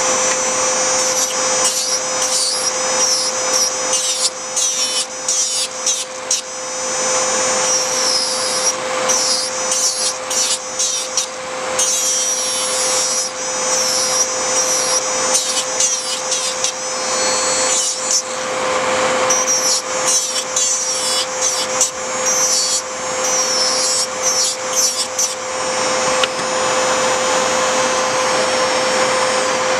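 Nail e-file running just under 15,000 RPM with a bit grinding down a thick poly gel nail in short, irregular strokes: a high scratchy grinding over a steady motor hum, the bit cutting straight through the gel without stalling. The grinding stops about 26 seconds in, leaving the steady hum of the e-file and the nail dust collector's fan.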